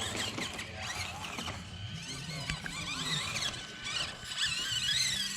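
A 1/24-scale RC crawler's small electric motor and drivetrain whining, the pitch rising and falling with the throttle as the truck crawls up a hill.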